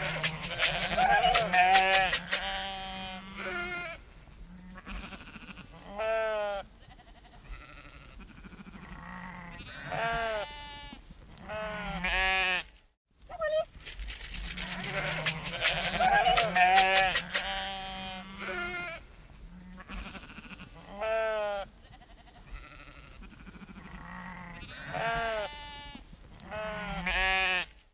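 Sheep bleating: a series of wavering calls of different pitches, some overlapping. The same stretch of recording plays twice, with a brief break about halfway through.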